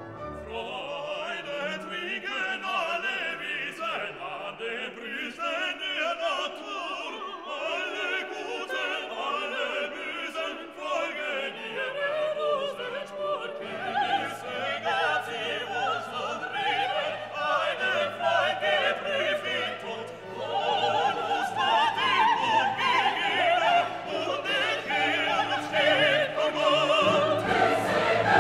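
Background classical music: an operatic singing voice over an orchestra, getting louder about two-thirds of the way through.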